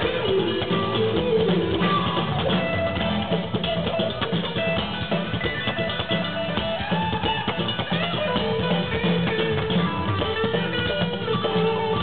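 Live rock band playing an instrumental break: electric guitars over a drum kit, with a lead guitar line that bends in pitch.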